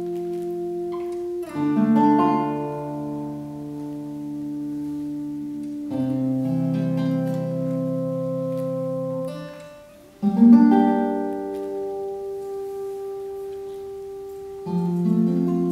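A steel-string acoustic guitar and a nylon-string classical guitar playing together: a slow run of chords, a new one struck about every four seconds and left to ring.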